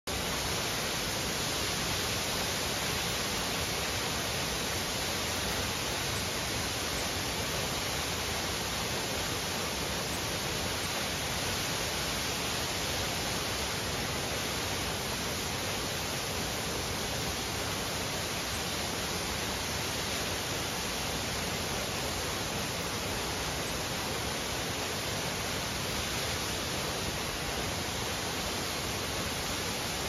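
Pen Pych waterfall pouring down a rock face: a steady, even rush of falling water.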